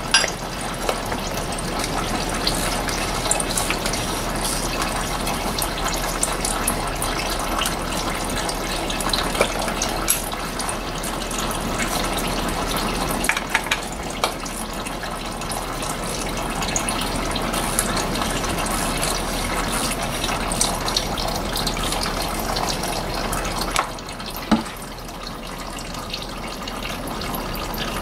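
Engine oil pouring in a steady stream from the open sump drain hole into a drain pan. A few sharp clicks come from the cap-type oil filter wrench and ratchet being worked on the filter housing.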